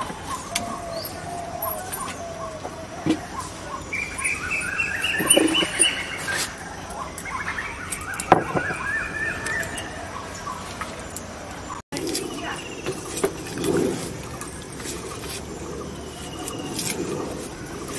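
Ginger, then garlic, being peeled by hand against the blade of a bonti, the curved floor-mounted kitchen blade, with small scraping clicks. In the middle a bird calls in a run of short, quick notes for a few seconds.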